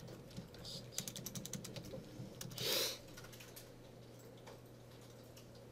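Typing on a computer keyboard: a quick run of keystrokes, then a short, loud rush of noise about two and a half seconds in, after which the keys go quiet over a low steady hum.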